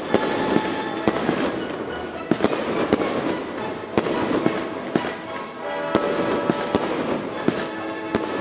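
Aerial fireworks bursting: sharp bangs about twice a second over a dense noise of explosions.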